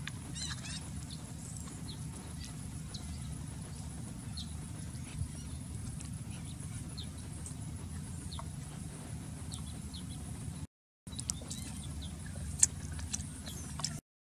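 Small clicks and light taps of hands handling snail shells, a bamboo skewer and banana leaf, over a steady low ambient hum and a faint high steady tone. The sound cuts out completely twice for a moment, near the middle and near the end.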